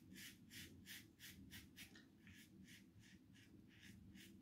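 RazoRock Wunderbar slant safety razor strokes cutting through short stubble: faint, crisp scraping in a steady rhythm of about three short strokes a second, with a brief pause about two seconds in. This is the second pass, where the shorter, stiffer stubble meeting the blade edge makes the razor sound noticeably more ringing.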